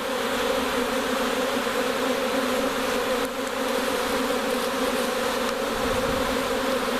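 Honey bee swarm in flight: a loud, steady buzz of many bees, with a low hum running through it.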